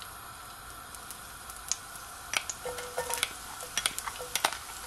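Sliced onion sizzling in hot olive oil in a frying pan as the pieces go in, a steady frying hiss with scattered crackling pops and a few light clinks.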